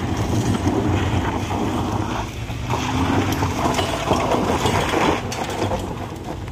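A vehicle engine running hard with a steady low rumble, mixed with a metallic rattling.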